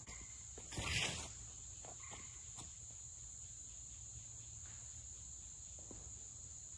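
Insects droning steadily at a high pitch, with one brief rushing noise about a second in.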